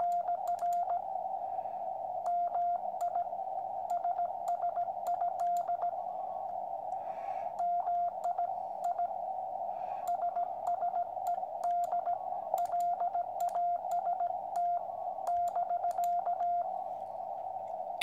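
Morse code received on the 80 m QCX transceiver: a single tone near 700 Hz keyed in dots and dashes over the hiss of the narrow CW filter, with scattered static crackles. The distant station is sending "RR" and that he missed the last word.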